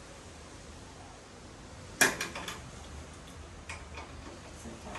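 Hand tools working on a motorcycle exhaust fitting: one sharp metallic clank about two seconds in, then a few lighter clicks and clinks.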